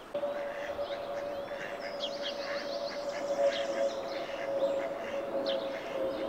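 Mallard ducklings peeping in short, repeated chirps, with a songbird's fast trill from about two seconds in to nearly four seconds, over a steady droning hum.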